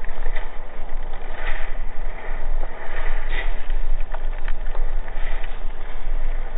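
Steady loud rush of heavy surf, with the foam of a sneaker wave washing far up the beach and waves breaking offshore, over a low wind rumble.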